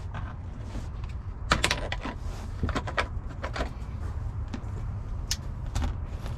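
A scatter of sharp clicks and light knocks from plastic dash parts and wiring being handled, several close together about one and a half seconds in and single ones after that, over a steady low rumble.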